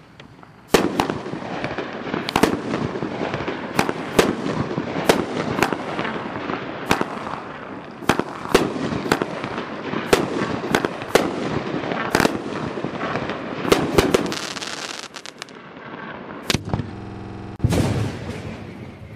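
Dominator Fireworks 'Epicenter' 12-shot, 200-gram aerial cake firing: a long run of sharp bangs, irregularly spaced about half a second to a second apart, over continuous crackling, which thins out near the end with one last loud bang.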